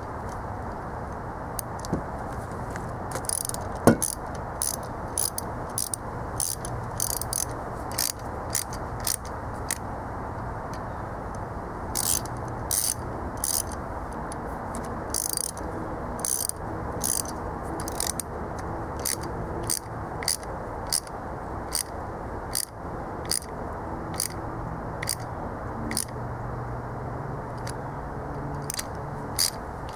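Light metal clicks, taps and scrapes from hand work on the engine block, irregular at about one or two a second, with one sharper knock about four seconds in.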